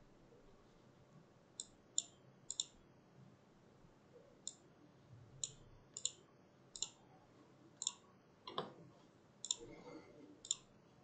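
Computer mouse button clicking about a dozen times, sharp and light, some clicks in quick pairs, with one duller knock about two-thirds of the way through.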